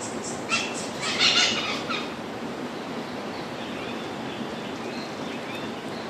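Marmosets calling: a burst of harsh, high squeaky chirps about a second in, then a few faint short chirps over steady outdoor background noise.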